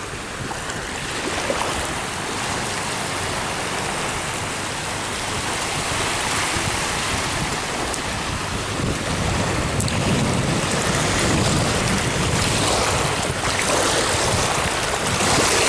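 Ocean waves breaking and washing up the beach in slow swells, with wind on the microphone.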